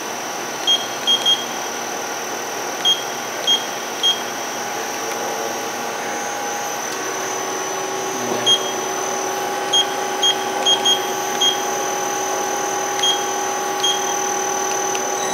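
Kia Turn 15 CNC turning center's control panel giving short, high beeps as keys are pressed, singly and in quick runs, over the machine's steady electrical hum. About seven seconds in, a second, lower steady tone joins the hum.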